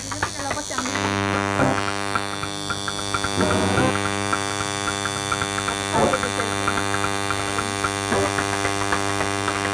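Coil tattoo machine buzzing steadily as its needle inks skin, a constant electric buzz.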